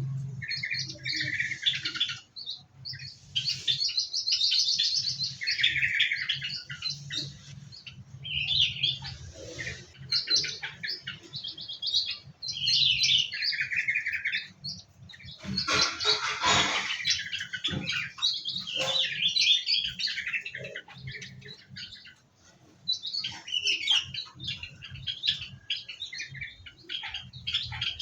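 Several small aviary birds chirping and twittering over one another in short, busy calls, with a louder, noisier rustling burst about halfway through.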